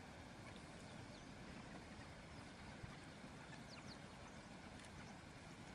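Near silence: faint steady background noise, with a few faint, short, high chirps about halfway through.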